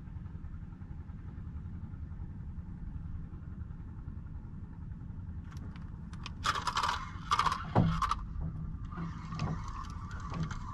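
A low steady rumble, then from about six seconds in, a spinning reel rattling in a few sharp bursts as the rod is jerked to work a jig, followed by a steady whir with light ticks as line is wound in.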